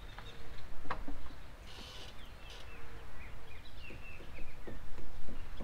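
Birds chirping in short calls over a low wind rumble, with a few sharp knocks and clicks from hands on the car and its roof rack.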